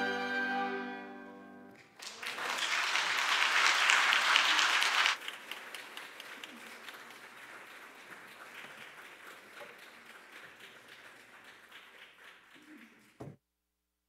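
Final chord of a small string and woodwind ensemble (violins, cello, flutes, clarinet) dying away, then audience applause for about three seconds that drops off suddenly, leaving low room noise with faint clicks until the sound cuts out just before the end.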